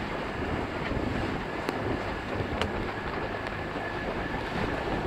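Wind rumbling on the microphone on the deck of a sailing catamaran under way, with the wash of water along the hulls. Two faint ticks come about a second and a half and two and a half seconds in.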